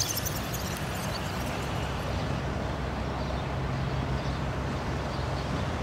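Steady outdoor background noise with a low, steady hum that sets in about three and a half seconds in.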